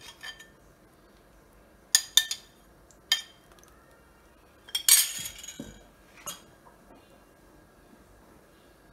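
A steel spoon clinking against a ceramic bowl and the rim of a stainless-steel pot as lemon juice is spooned into hot milk to curdle it for paneer. The clinks are sharp and scattered, with a quick group of three about two seconds in and the loudest cluster about five seconds in.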